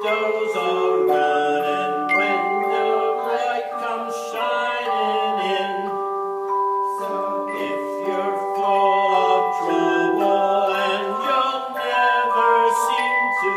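Tone chimes ringing a melody with chords, each struck note held and overlapping the next in long, pure sustained tones.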